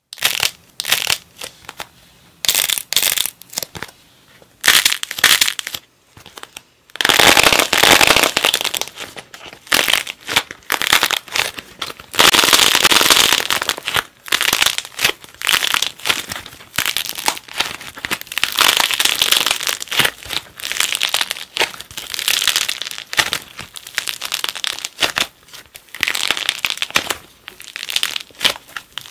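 Hands cracking and crushing a painted, hardened clay figure head, in irregular bursts of crunching and crackling as the shell breaks up. Near the end the broken clay is squeezed and kneaded together, and the crackling goes on.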